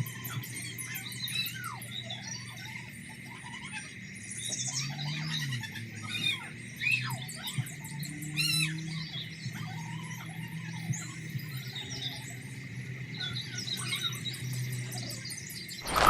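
Many quick bird chirps and squeaky calls, one after another, over a steady low hum and a faint high tone. A loud rushing noise cuts in at the very end.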